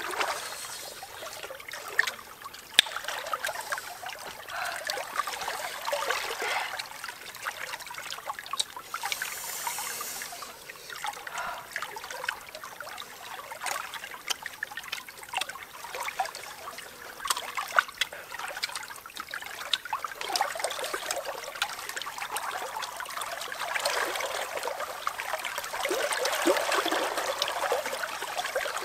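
Shallow stream trickling, the water noise swelling and easing, with scattered sharp clicks and taps over it.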